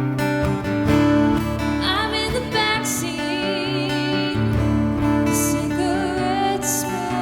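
Acoustic guitar strumming chords in an instrumental passage of a folk song. A wavering melody line is held above it about two seconds in and again near the end.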